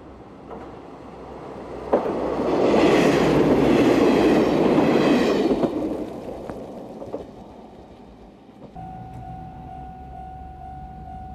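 Diesel railcar train passing close by, its wheels and engines rising to a loud rush about two seconds in and fading away by about six seconds. Near the end a steady high tone starts.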